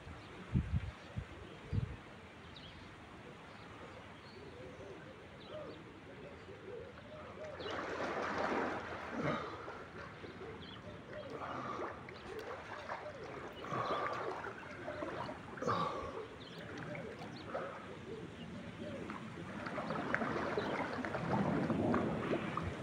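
Pool water splashing and sloshing as a man swims, in uneven bursts that grow heavier and more continuous near the end. A few low thumps come in the first two seconds.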